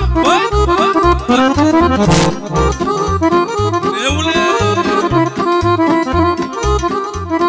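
A Roland accordion plays a fast lead melody of a Romanian folk dance tune over the band's steady bass beat, with a crash about two seconds in.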